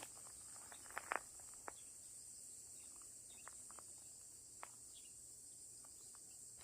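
Faint outdoor ambience: a steady, high insect chirring, with a few light clicks scattered through it, the loudest pair about a second in.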